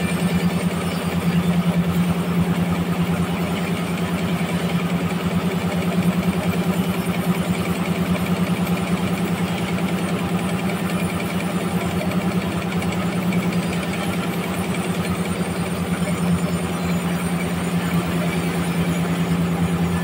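Large vertical band sawmill running and ripping a big trembesi (rain tree) log into a slab: a loud, steady machine hum with the continuous rasp of the blade in the wood.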